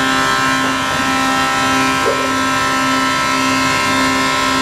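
A Tongan TA845 hydraulic clamp carrier (wood glue press) running: a loud, steady mechanical whine made of many even tones, over a low hum that swells and fades about once a second.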